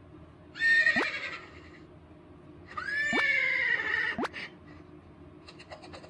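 Recording of a horse whinnying, played back through a speaker: two whinnies, a shorter one about half a second in and a longer, quavering one about three seconds in.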